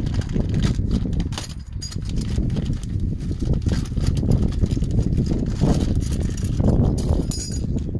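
Irregular metal clicks and knocks of hand work on a car's exhaust pipe and clamp from underneath, over a steady low rumble.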